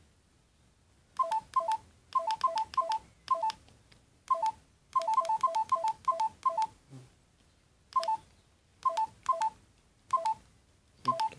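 LG GS101 mobile phone's keypad beeping once for each press of its navigation keys while scrolling through menus. The short beeps come in quick runs of several with pauses between.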